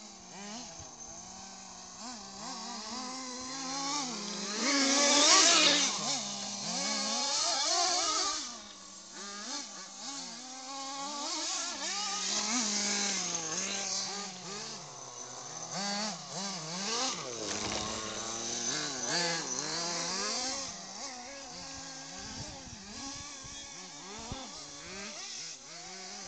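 Several petrol-powered remote-controlled cars racing, their small high-revving engines whining up and down in pitch as they accelerate and brake; one passes close and is loudest about five seconds in.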